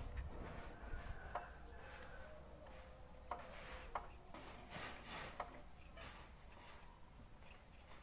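Faint, steady, high insect trilling, with a few short sharp clicks around the middle.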